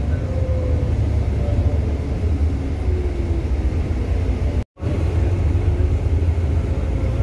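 Steady low rumble of a tour coach's engine and road noise, heard from inside the passenger cabin as the bus drives. The sound cuts out for a split second about four and a half seconds in.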